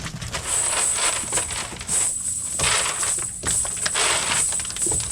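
Cast net with mullet in it being handled: water splashing and fish flapping in irregular bursts.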